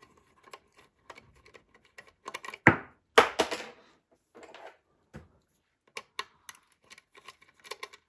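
Small screwdriver clicking and scraping on the wire terminal screws of a 3D printer's mainboard as they are loosened: scattered light clicks, with two louder knocks about half a second apart around three seconds in.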